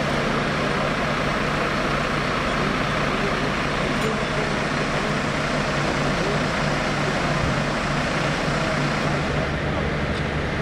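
A heavy engine running steadily with a constant low hum, under an even rushing noise.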